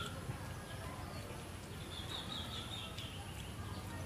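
Birds chirping faintly, a quick run of short high chirps about two seconds in, over steady low outdoor background noise.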